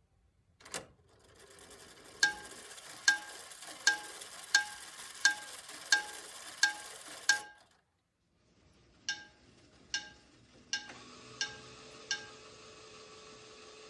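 A LEGO Technic grandfather clock's chime striker striking its chime over and over, each blow ringing briefly at the same pitch, about eight strikes spaced under a second apart over a steady hiss from the mechanism. After a short break come five more strikes, and a faint steady tone follows.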